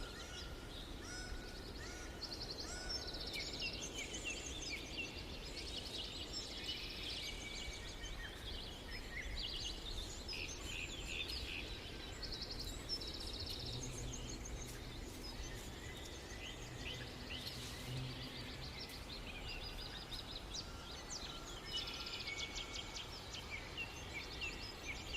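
Canary singing: a steady run of high chirps and fast, rattling trills of rapidly repeated notes, over a steady background hiss.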